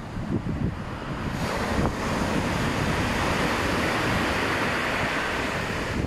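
Rough post-typhoon surf breaking and washing in, with wind buffeting the microphone. A low rumble at first, then from about a second and a half in a long rushing hiss as a wave breaks and its foam runs in.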